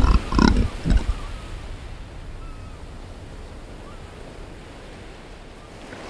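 Ocean surf washing onto a beach: a steady, even rush of small breaking waves.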